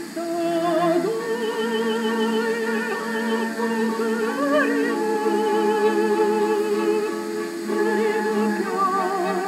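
Korean art song (gagok) sung in a classical, operatic style: a slow melody of long held notes with wide vibrato over a steady sustained accompaniment.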